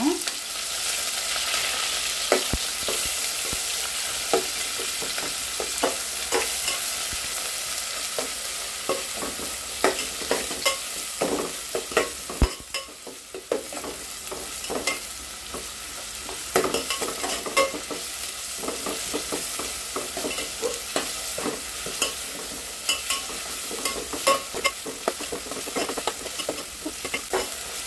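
Sliced onions and green chillies sizzling in hot oil in an aluminium pot, with a metal spoon scraping and clicking against the pot as they are stirred.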